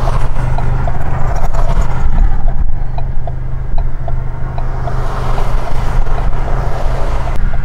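Car driving at a steady speed: a steady low drone of engine and road noise with faint light ticks.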